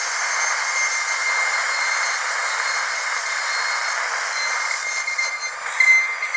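Dentist's drill running with a steady high whine over a rushing hiss. A little before the end it gets briefly louder and the whine rises slightly in pitch.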